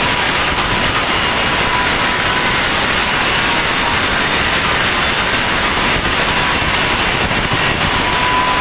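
Loud, steady machine noise that runs without a break or change.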